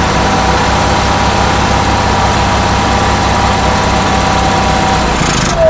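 Generator engine running after a restart, a steady loud running sound that changes about five seconds in. It is running only on fuel poured down the carburettor, which the owner takes for a fuel pump not getting proper power.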